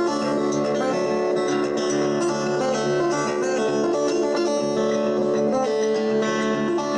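Background music: guitar-led instrumental with plucked and strummed strings, playing steadily.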